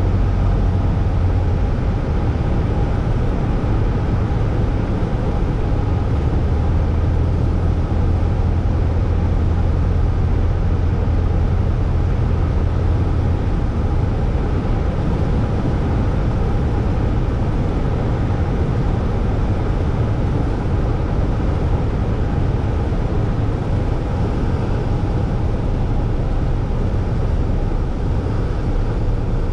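Piston engine and propeller of a single-engine high-wing light airplane, heard inside the cockpit as a steady loud drone during approach and landing; the low hum eases about halfway through.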